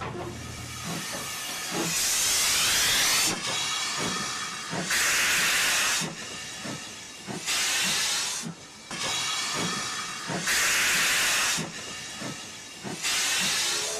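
Steam locomotive working: five loud bursts of hissing steam, each about a second long and coming about every two and a half seconds, with a steady run of short sharp knocks between them.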